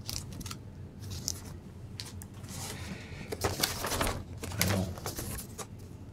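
Handling of a vinyl LP: a clear plastic outer sleeve crinkling and the record in its paper inner sleeve sliding out, heard as irregular rustles and scrapes with a few light knocks.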